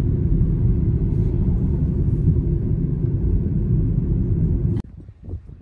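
Steady low rumble of road and engine noise heard from inside a moving car. It cuts off abruptly about five seconds in, giving way to much quieter sound.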